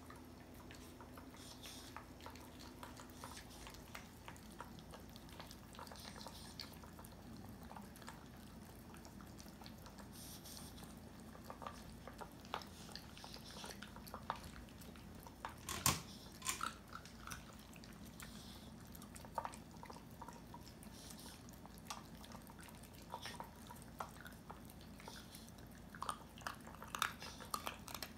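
Two small dogs eating kibble from stainless-steel bowls: faint chewing and crunching, with scattered clicks and knocks, one louder about halfway through and a run of them near the end.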